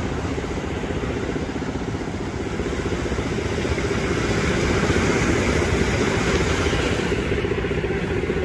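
Small fishing boat's engine running with a rapid, steady chug as the boat comes in toward the beach, a little louder around the middle, over surf breaking on the shore.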